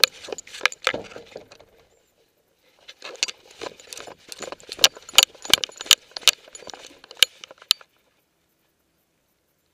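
Rapid jingling and rattling from a camera harness on a running dog, broken by a short pause about two seconds in, then stopping for good nearly two seconds before the end.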